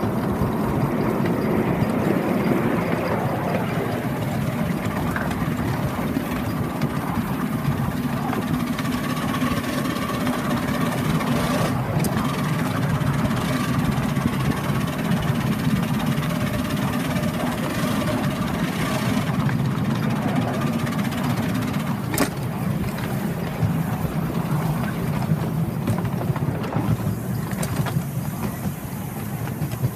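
Miniature railway train running along the track, a steady engine hum with wheel and rail noise, and a couple of sharp clicks from the wheels and track partway through.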